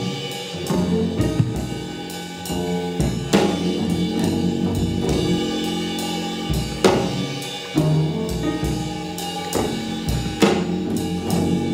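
Recorded music with a drum kit over sustained pitched notes, a strong accented hit landing about every three and a half seconds.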